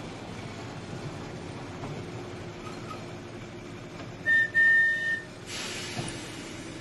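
Electric tram running along the track with a steady rumble. About four seconds in, a tram whistle gives two toots: a short blip, then a longer steady note. A brief hiss follows.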